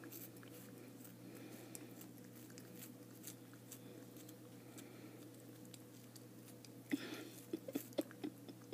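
A cat chewing and biting a caramel apple slice held in a hand: faint chewing clicks throughout, growing louder and quicker for about a second and a half near the end.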